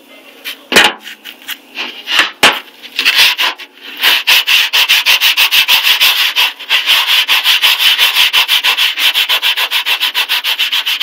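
Balled-up aluminum foil scrubbed hard over a crusted metal cookie sheet coated with baking-soda paste. A few separate scraping strokes at first, then rapid, even back-and-forth strokes, about five a second, from about four seconds in.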